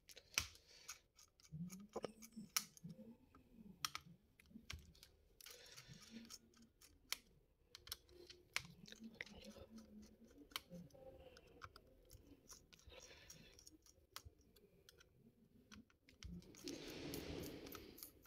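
Faint, scattered clicks and taps of a screwdriver and metal and plastic parts as a laptop's heat sink is unscrewed and lifted out, with a short scraping rustle near the end.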